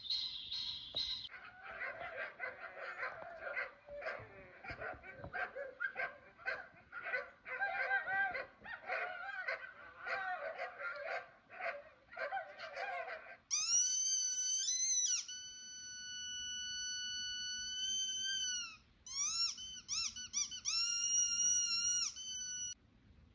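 Sound effects playing: a long run of quick, high squeaks, then several long, high-pitched squeals lasting one to three seconds each, each sliding up at the start and down at the end.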